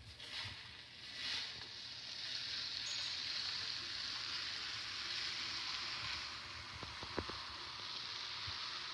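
Cat litter sliding and pouring inside the rotating drum of a self-cleaning litter box: a steady hiss of shifting granules that builds over the first couple of seconds, with a few faint clicks near the end.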